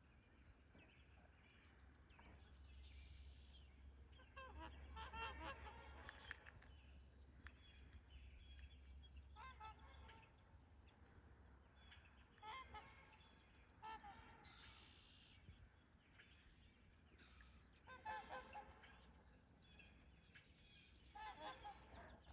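Trumpeter swans calling: faint, repeated honking calls that come in groups every few seconds.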